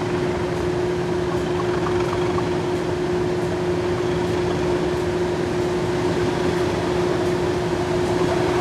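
Diesel locomotive engine idling at a standstill: a steady drone with one strong held note over the engine's rumble.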